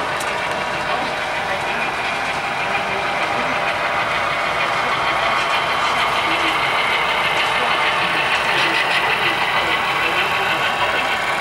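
Model diesel locomotives running past on a layout, giving a steady diesel-engine running sound.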